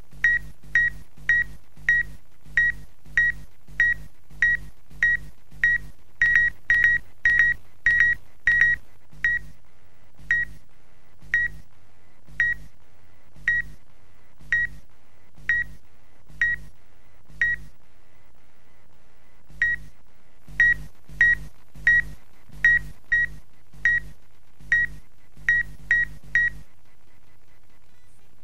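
Short electronic beeps at one high pitch, each with a low hum under it, repeating about once or twice a second at an uneven pace. They quicken for a while, slow down, pause for about two seconds, then resume and stop shortly before the end.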